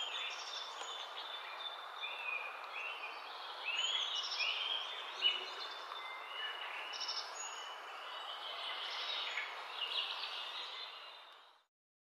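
Wild birds calling: many short whistled and chirping notes, some sliding downward, over a steady outdoor hiss. It all fades out shortly before the end.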